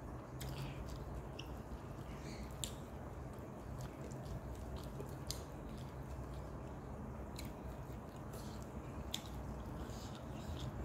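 A person eating by hand and chewing, with scattered small mouth smacks and clicks, over a steady low hum.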